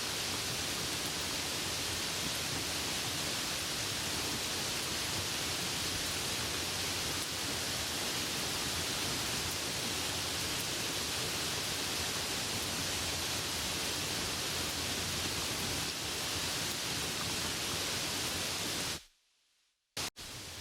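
Steady, even hiss of soft rain. Near the end it cuts out suddenly for about a second, with one very brief burst in the gap, then comes back a little quieter.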